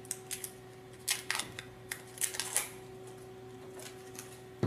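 Protective cover being peeled off red plastic kit panels: a scatter of short crackles and light plastic clicks over a faint steady hum.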